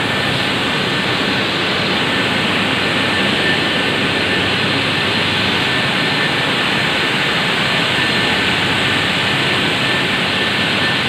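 Steady loud machinery noise of a power plant's turbine hall, where 660 MW steam turbine-generator sets are running: a dense, even rushing roar with a faint high steady whine.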